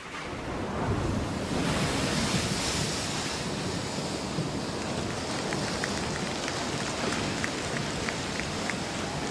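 Audience applause: dense, steady clapping that swells in the second or so after the music stops, then holds, with a few single claps standing out.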